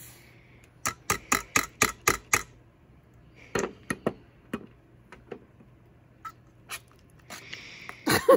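A spoon knocking against a mixing bowl while stirring a thick cheesecake filling: a quick run of about six sharp clicks, then scattered single knocks and one louder knock near the end.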